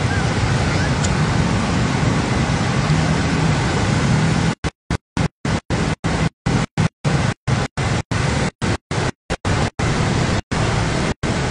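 Motorbike and car engines and the wash of water around their wheels as traffic drives through a flooded street, heard as a steady noisy rumble. From about halfway through, the audio repeatedly cuts out in about twenty brief gaps.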